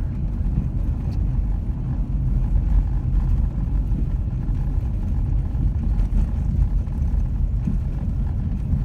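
Steady low rumble of a Jeep Commander driving, heard from inside the cabin: engine and tyres running on a snow-covered, barely plowed road.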